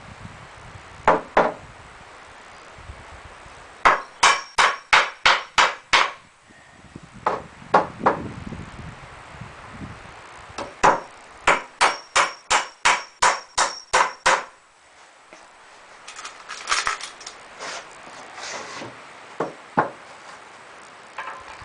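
Hammer driving nails into a wooden frame: two runs of quick, even blows, about three a second, some with a faint metallic ring. A few lighter, scattered knocks follow near the end.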